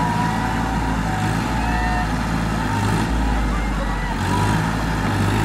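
Tractor engine running steadily under load, pulling against a team of men hauling on a rope in a tug of war, with distant voices shouting over it.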